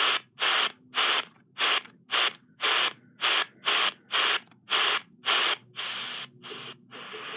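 Tecsun PL-606 world band radio being stepped through shortwave frequencies toward 6115 kHz: a short burst of static about twice a second, muted between steps. Near the end the static turns fainter and then runs on as a steady hiss as the tuning nears the station.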